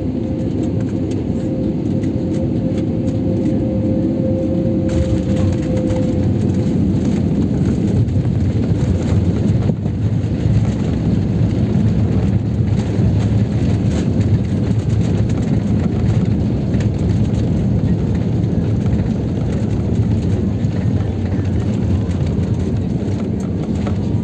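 Cabin noise of an Airbus A320-family jet on its landing rollout: a loud, steady rumble of engines and wheels on the runway, with its ground spoilers raised to brake. A steady tone fades out in the first few seconds, and about five seconds in the noise turns hissier.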